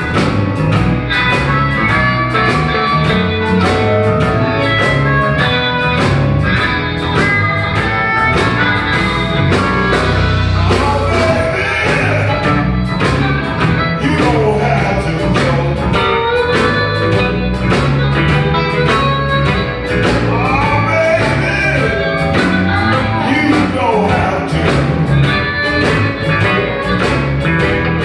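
Live electric blues band playing: electric guitar, bass guitar, keyboard and drum kit, with a harmonica played into a hand-held microphone bending notes over the band.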